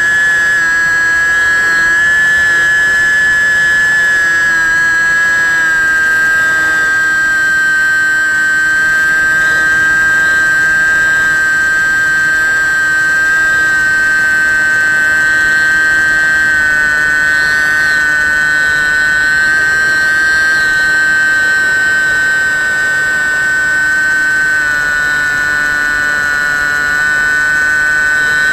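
The Bixler 1.1 RC plane's 1900kv brushless outrunner motor and propeller whining steadily in flight, heard close from the onboard camera. The pitch dips slightly a few times, over a low rush of air.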